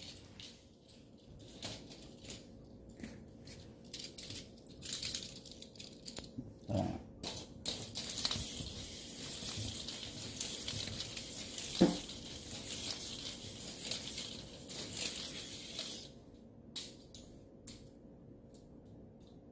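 A small toy on a string scraping and rattling across a laminate floor as it is dragged and swung round, with a kitten's paws skittering and pouncing on it. The scraping is densest from about five seconds in to about sixteen seconds in, with two short, low, falling sounds near the middle.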